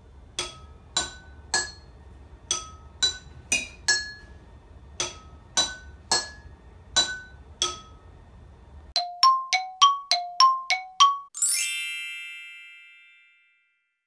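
Water-filled glass jars struck one at a time with a metal spoon, each giving a clear ringing note, picking out a slow tune in repeated groups of three rising pitches. After a cut comes a quicker run of brighter chiming notes that alternate between two pitches, then a shimmering ringing flourish that fades out over about two seconds.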